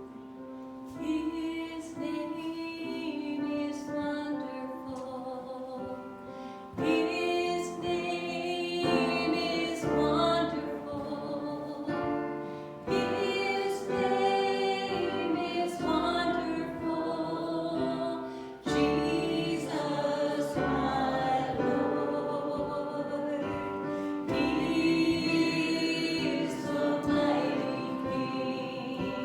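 Congregation or choir singing a hymn with instrumental accompaniment, in long held phrases.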